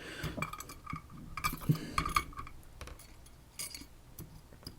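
Light metallic clicks and clinks of a picked Assa Twin 6000 lock cylinder and its picking tools being handled, scattered irregularly and busiest in the first couple of seconds.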